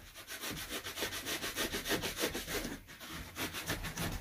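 Fast, even scraping strokes, about ten a second, as insulation is worked by hand into the gap between a timber frame and a concrete wall. There is a short break a little under three seconds in, then the strokes go on.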